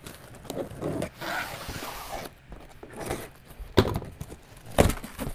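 Scissors slicing through the packing tape on a cardboard box, then the cardboard flaps being pulled open with scraping and rustling. Two sharp knocks about a second apart near the end.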